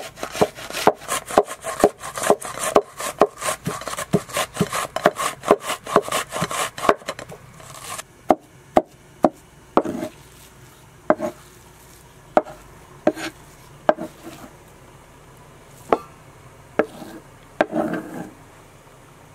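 An onion rubbed up and down a metal box grater in quick, even strokes, about three a second. About eight seconds in this gives way to a knife chopping minced meat on a wooden cutting board: single sharp knocks a second or so apart, with a short scrape near the end.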